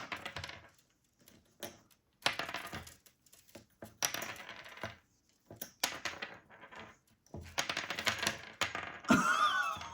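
Rings from a ring-toss toy clattering and rattling in a series of short bursts, about five in all, as the green-cheeked conure handles and drops them.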